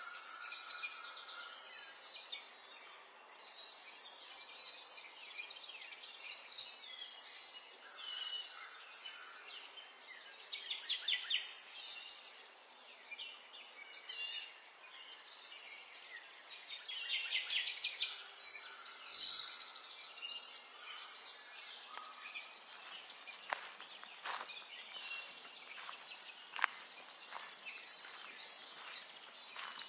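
Several small songbirds chirping and trilling in quick, overlapping phrases over a faint steady background hiss, with a few sharp clicks in the last several seconds.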